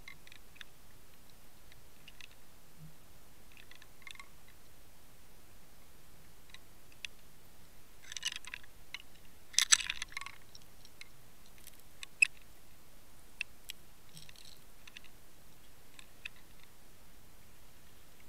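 Underwater sound picked up by a Water Wolf fishing-line camera: a steady hiss with scattered sharp clicks and crackles, and a louder burst of crackling about eight to ten seconds in.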